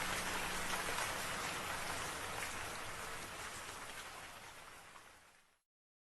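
Steady rain falling, a dense hiss with individual drops ticking through it, fading out over the last couple of seconds into complete silence.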